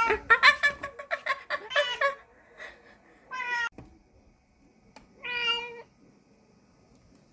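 Cat meowing: a quick run of short, broken meows over the first two seconds, then two single meows a couple of seconds apart.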